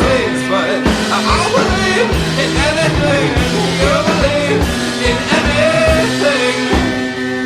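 Indie rock song with drums, guitars and keyboard and a bending vocal line over a steady beat.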